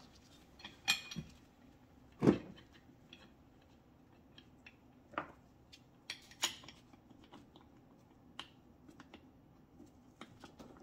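Scattered light clicks and clinks of a metal bracket and small bolts being handled and fitted by hand to an air spring, with one louder knock about two seconds in.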